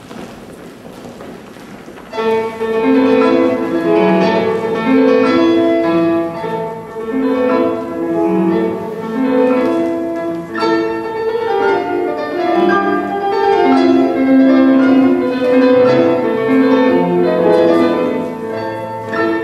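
Piano music starting about two seconds in after a quieter stretch of stage noise, then a busy, continuous run of notes with changing pitch and loudness.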